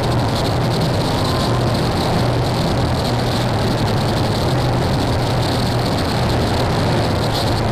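Power electronics dark ambient noise music: a steady, dense wall of harsh noise over a low droning hum, with no clear rhythm.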